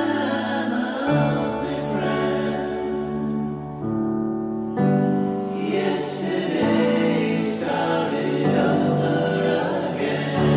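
Music with choir-like singing over long held chords that change every second or two.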